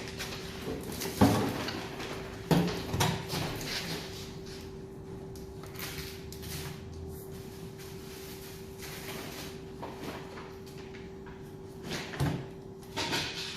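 Plastic parts of a stand fan being handled and fitted together during assembly: a few sharp knocks and clicks about a second in, twice more around three seconds in, and again near the end, with light handling noise between them. A steady faint hum runs underneath.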